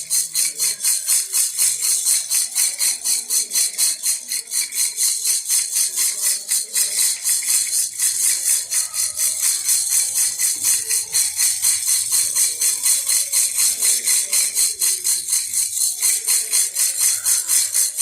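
Baby rattle (jhunjhuna) shaken in a steady rhythm, about five jingly rattling shakes a second.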